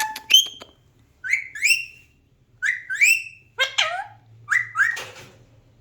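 Alexandrine parakeet making short whistled chirps in quick pairs, about four pairs, each note rising then falling.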